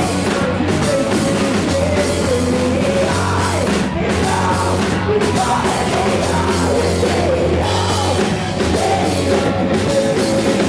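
Live grunge rock band playing loud and without a break: electric guitars, bass and drums, with a bending melodic line over the top and no words sung.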